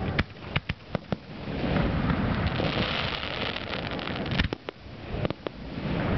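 Aerial fireworks shells bursting: a quick string of sharp bangs in the first second, a rolling rumble of overlapping bursts through the middle, then another loud bang and a few more cracks near the end.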